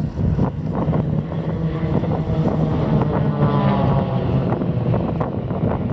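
Piston engines of a formation of propeller aerobatic planes droning overhead, the pitch sweeping downward around the middle as they pass. Wind buffets the microphone.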